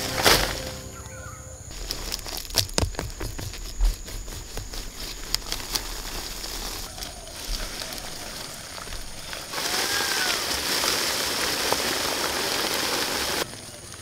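Leaves rustling and roots snapping and tearing out of the soil as arrowroot plants are pulled up by hand, with a sharp snap near the start and a run of crackling clicks a few seconds in. Later a steady hiss takes over for about four seconds, with a short chirp in it.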